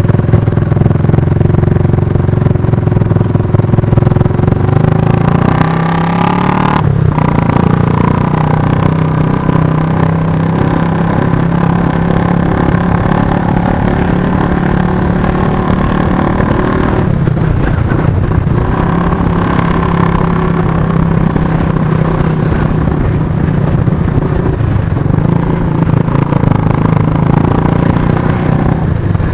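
Motorcycle engine running at a steady pace while riding in city traffic, one even engine note that dips briefly about seven seconds in and again around seventeen to nineteen seconds in.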